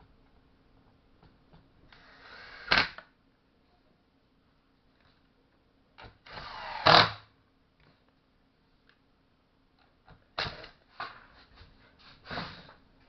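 Stihl MS-180 chainsaw's recoil starter cord pulled twice, each pull a whirring rise ending in a sharp peak, the engine turning over without firing; shorter rattles and pulls follow near the end.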